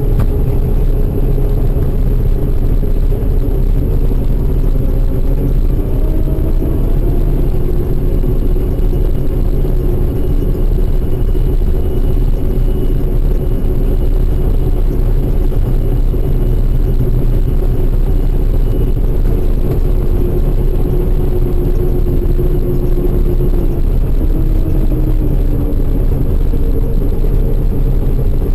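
Harvest machinery engine running steadily under load: a loud, continuous low rumble with a faint hum that drifts slightly in pitch.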